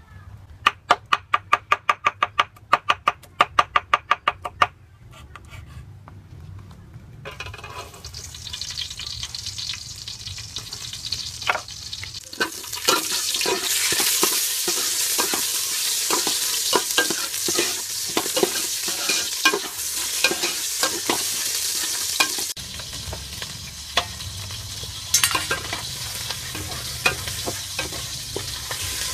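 Chopped garlic and lemongrass frying in hot oil in an aluminium pot, sizzling, with a metal ladle stirring and clicking against the pot. A rapid run of sharp clicks comes first. The sizzle starts a few seconds later and grows loud about halfway through.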